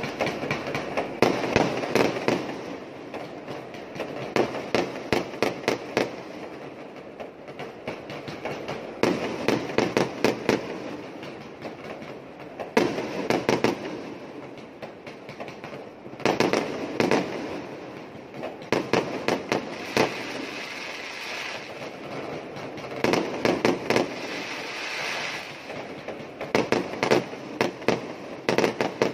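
Aerial fireworks going off in repeated volleys: clusters of sharp bangs and cracks every few seconds, over a steady background din of more fireworks further away.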